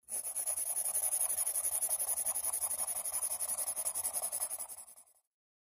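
Sound effect of rapid pencil scratching on paper, pulsing several times a second. It fades out about five seconds in.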